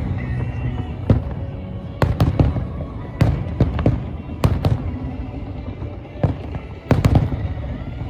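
Fireworks display: a rapid, irregular barrage of sharp bangs, more than a dozen, over a continuous low rumble of distant explosions.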